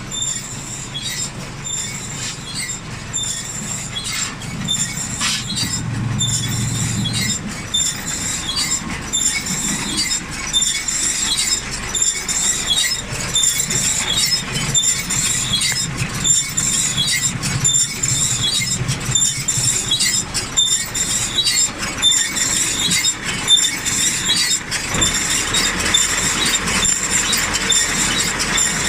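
Claas Rollant 255 RotoCut round baler running empty, its rollers and drive chains turning with fast metallic clatter and a steady high-pitched squeal, over the low hum of the tractor driving it.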